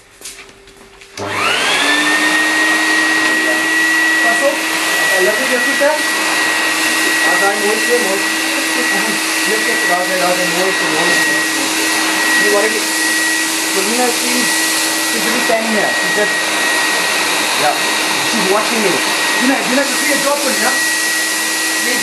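An ordinary household vacuum cleaner switched on about a second in, its motor whine rising quickly over about a second to a steady high pitch, then running steadily with a rush of air.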